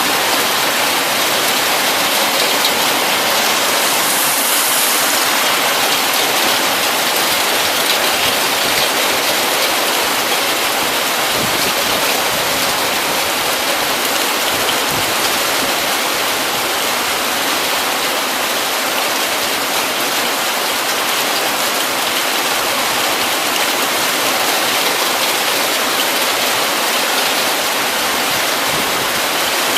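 Heavy rain pouring down, a steady unbroken hiss with no thunder.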